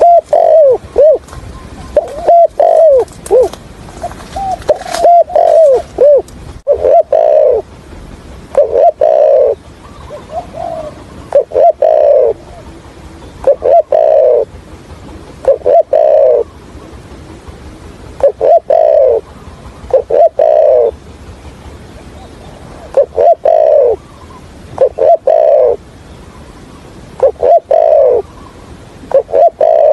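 Spotted dove cooing. A quick run of short, stuttering coos fills the first few seconds, then the coos settle into a regular phrase about every two seconds.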